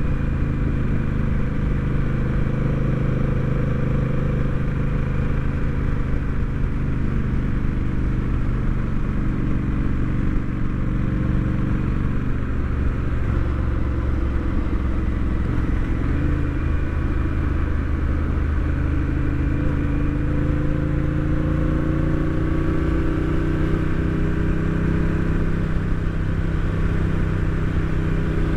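Honda Rebel 1100 DCT's parallel-twin engine running under way, its note easing off about halfway through and then rising steadily as it accelerates toward the end.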